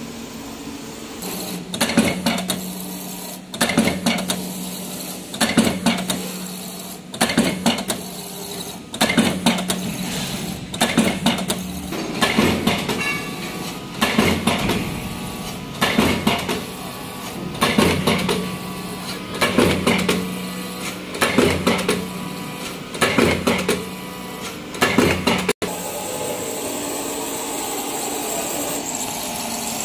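CNC hydraulic plate punching machine punching holes in a steel plate: a sharp metallic punch stroke with clatter about every two seconds, over a steady hum from the hydraulic power unit. The punching stops suddenly near the end, leaving only a steady machine noise.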